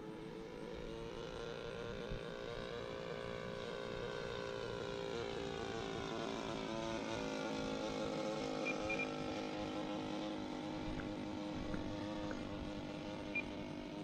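Model airplane engine of a radio-controlled Nieuport 28 biplane in flight: a steady drone that grows louder towards the middle and fades again, its pitch slowly rising and falling as it passes. The engine is not running great.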